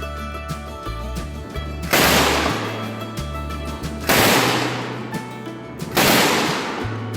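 Three loud bangs about two seconds apart, each ringing off over about a second, over a music track with a steady bass line.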